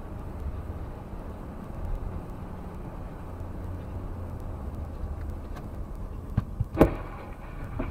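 Steady low rumble of road and engine noise heard from inside a moving car, with two light knocks and then a single sharp bang nearly seven seconds in.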